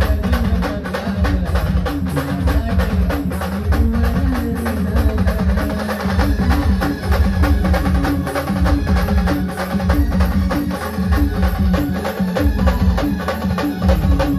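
A band playing a song tune, with a melody carried over heavy, steady drum beats and busy percussion.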